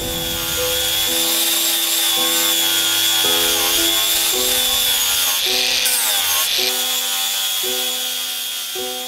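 Angle grinder with a sanding disc running against an oak slab: a steady high motor whine over the hiss of abrasion, its sound shifting for about a second past the middle as the disc works the wood. Piano music plays alongside it.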